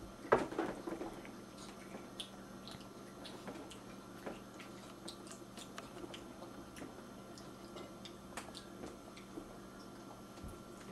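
Faint, scattered clicks and soft mouth noises of a toddler chewing bunny-shaped snacks, louder just after the start. A steady low hum runs underneath.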